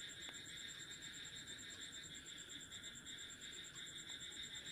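Faint, steady chirring of insects such as crickets, with an even high pulsing above it.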